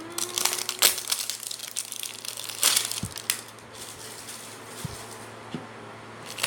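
Plastic wrapping of an LOL Surprise ball crinkling and rustling in the hands as a layer is torn open and crumpled, in irregular bursts, the loudest about a second in and again near three seconds.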